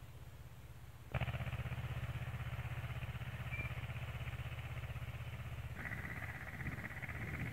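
Ursus tractor's diesel engine running steadily while pulling a seed drill, a fast even chugging. It jumps abruptly louder about a second in and changes tone again near the end.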